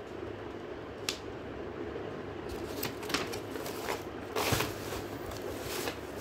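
Paper, bubble wrap and a cardboard box being handled, rustling and crinkling. Several short crackles come through, the loudest about four and a half seconds in, over a steady low background hum.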